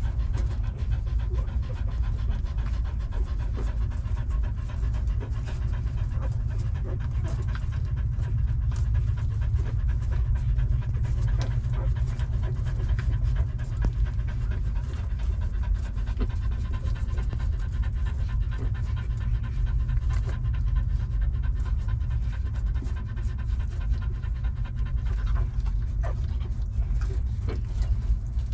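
Nursing mother dog panting steadily, open-mouthed, over a steady low rumble.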